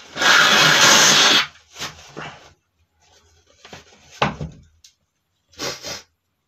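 A man sneezing: one loud, noisy burst lasting about a second, followed by several short, quieter breaths and sniffs.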